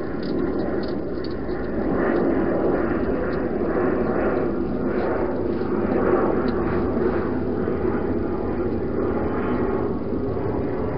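Wild hedgehog eating inside a plastic-box feeding station, with irregular wet chewing and crunching clicks over a steady background rumble and hiss.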